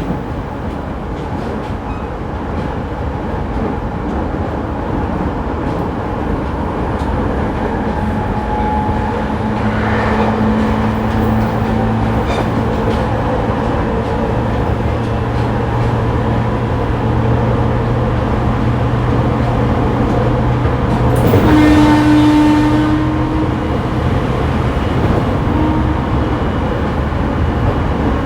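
Interior running sound of a JR East E501-series electric train, heard from inside a motor car: a steady rumble of wheels on rail with a low, even hum from the traction motors. About 21 seconds in, a brief louder sound with a ringing tone stands out, then fades.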